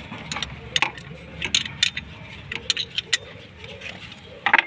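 A steel spanner clicking and clinking against the bolts of a car AC compressor as it is being unbolted. Irregular sharp metallic clicks, with a louder cluster near the end.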